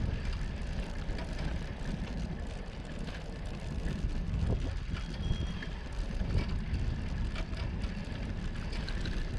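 Bicycle riding over brick paving, heard through a handlebar-mounted camera: a steady low rumble from the tyres and frame, with frequent small rattles and clicks.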